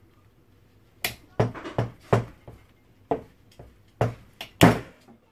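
A hand tool clicking and knocking against an old electric motor's metal housing and screws as it is being taken apart: about ten sharp, irregular knocks, each with a short ring, starting about a second in, the loudest near the end.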